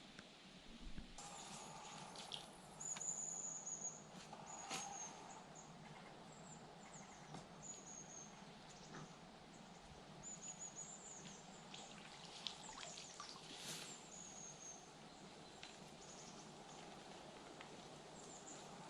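Faint bird calls in woodland: short, thin, high-pitched notes, some gliding down, repeated at irregular intervals over a quiet steady hiss.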